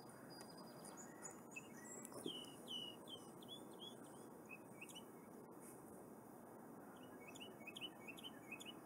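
A small bird chirping faintly: two runs of quick, repeated chirps, one about two seconds in and another near the end, over a low steady hiss.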